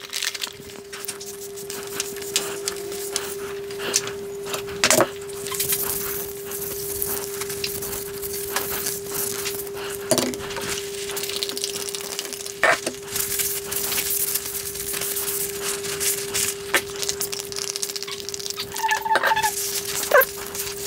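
Handling the plastic frame parts of a disassembled resin-printer vat: scattered clicks and knocks as they are picked up and set down, and the rustle of a paper towel rubbing the frame, with a few short squeaks near the end. A steady low hum runs underneath.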